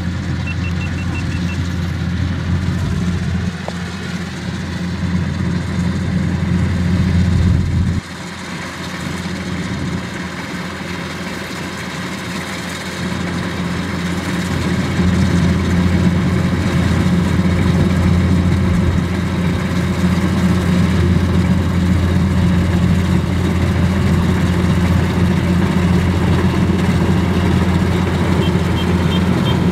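Kubota DC-105X combine harvester's diesel engine running steadily as it cuts rice, its level dropping suddenly about 8 s in and growing louder from about halfway as the machine comes closer. Short runs of faint, rapid high beeps are heard at the start and again near the end.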